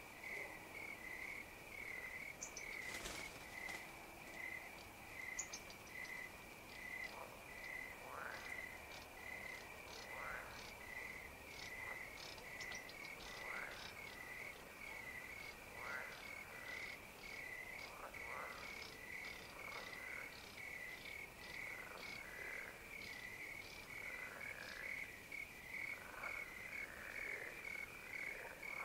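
Evening chorus of frogs and crickets. A cricket chirps steadily a few times a second, short falling frog calls come every second or two, and scattered high insect ticks sound over them.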